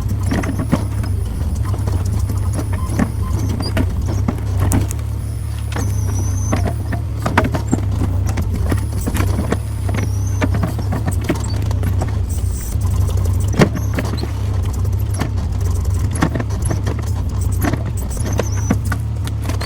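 Small skid steer's engine running steadily under load, with irregular clanks and knocks from its grapple attachment working at a stump and faint high squeaks.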